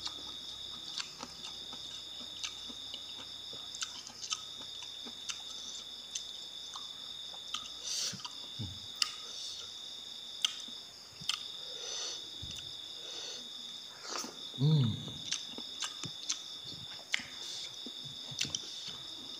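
Close-up eating sounds: a man chewing and smacking his lips over a mouthful of fish and rice, with scattered short clicks and smacks and a brief hummed 'mm' about three-quarters through. A steady high insect chirring runs underneath.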